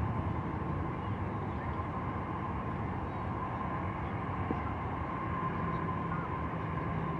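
Boeing 747-8I's four GEnx turbofan engines heard from a distance as the aircraft departs: a steady low rumble with a faint steady whine.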